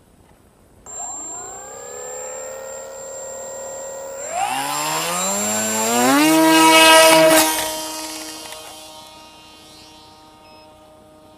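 Electric motor and propeller of an FX-79 Buffalo flying wing spinning up: a whine that starts suddenly about a second in and rises in pitch, then climbs again to full throttle, loudest around the middle. It then fades at a steady pitch as the plane flies off.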